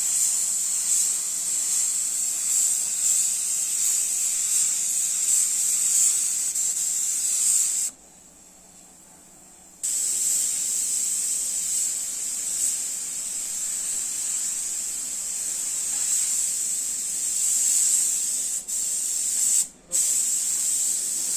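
Gravity-feed compressed-air spray gun spraying car paint onto a body panel: a steady, high-pitched air hiss that stops for about two seconds near the middle and cuts out briefly again near the end.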